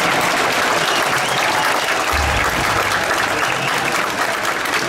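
A large festival crowd cheering and clapping, a steady dense din, with a short low thump about two seconds in.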